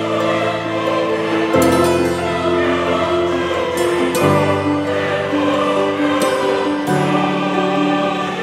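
Background music: slow, sustained choir-like chords that change about every two and a half seconds.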